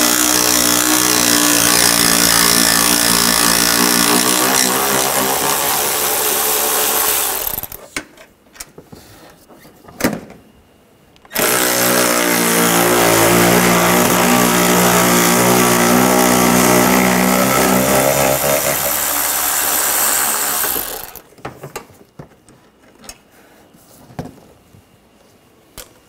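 Cordless power tool spinning a 10mm socket to back out the bolts inside the front fender well, in two long steady runs of several seconds each. A short click comes between the runs, and there are only small ticks near the end.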